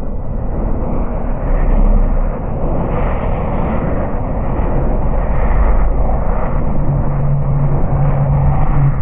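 Continuous sleep noise track: a deep, steady noise with no high hiss, swelling and easing slightly. A low hum joins about two-thirds of the way through.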